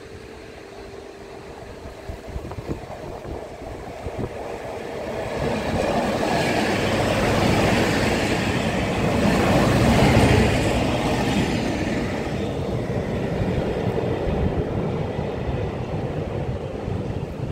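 Passenger train passing close by: the rumble of its wheels on the rails swells over a few seconds, is loudest about ten seconds in, then eases to a steadier, lower rumble.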